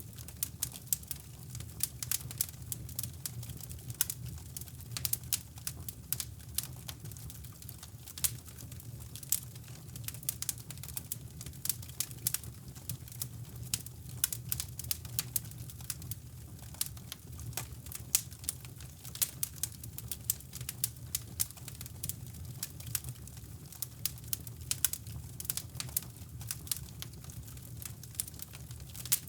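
Wood fire crackling in a fireplace, with many irregular sharp pops and snaps. Underneath runs a steady, deep brown-noise rush.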